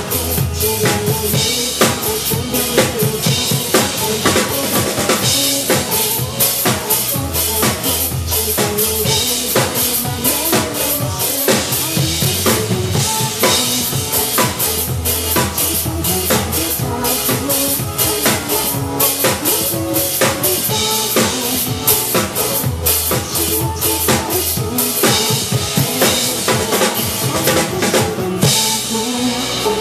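Drum kit played fast and hard along with a backing track: dense, rapid hits with a pulsing bass-drum low end under the music. The drumming thins out just before the end while the backing music carries on.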